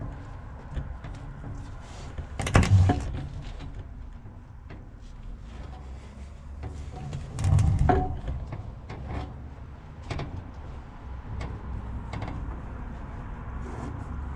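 Handling noise from a sailboat mast and its wire rigging and metal fittings: scattered clicks, knocks and rattles, with two heavier thumps, one about two and a half seconds in and one about seven and a half seconds in.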